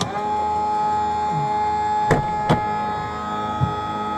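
Inside the cabin of a light aircraft, a steady electric whine comes on abruptly as the plane's engine start begins. Two sharp clicks sound about two seconds in.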